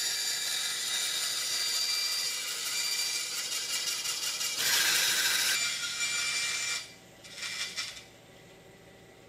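Bandsaw blade cutting a veneered wooden paddle blank along a curved line: a steady hissing rasp of the blade through the wood over the motor's hum, loudest about five seconds in. The cut stops about seven seconds in, and after one short burst the sound drops to faint room tone.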